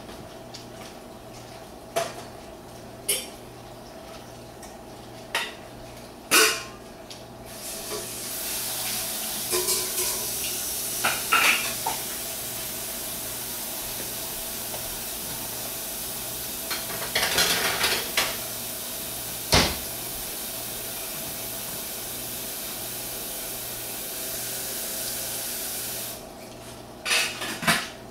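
Tabletop eating sounds: short crinkles of an aluminium-foil wrapper and sharp clicks of a plate and dishes. A steady hiss comes in about eight seconds in and stops a couple of seconds before the end.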